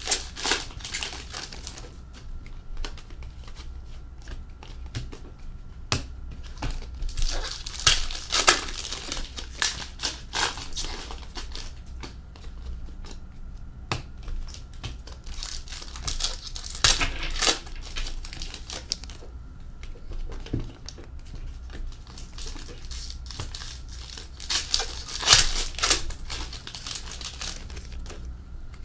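Hockey card pack wrappers being torn open and crinkled while cards are handled, in several bursts of rustling a few seconds apart.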